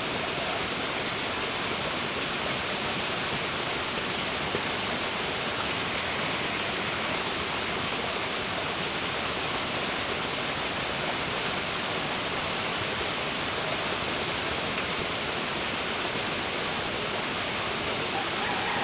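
Steady, even rush of running water, with no break or change.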